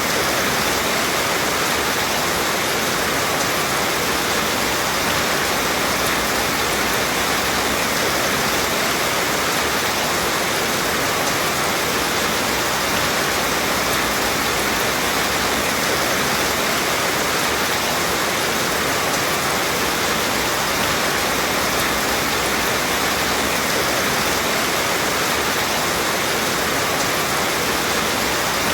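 Steady rain falling: a dense, even hiss with no separate drops standing out and no change in level.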